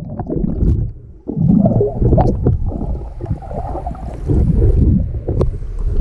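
Muffled underwater rumble and gurgling of seawater and bubbles against an action camera's waterproof housing, with scattered small clicks. It drops away briefly about a second in, then comes back.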